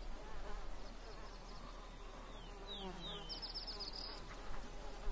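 Biting flies buzzing steadily at a low level, with a few short, high, falling chirps around the middle.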